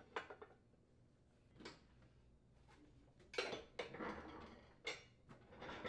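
Faint scattered metallic clinks and knocks from a Craftsman riding mower's steel deck being shifted and slid back under the mower's frame, with the busiest run of knocks about three and a half seconds in.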